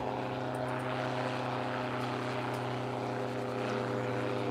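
ELA 10 Eclipse gyrocopter in flight: its turbocharged Rotax 914 four-cylinder engine and pusher propeller running at a steady, even pitch.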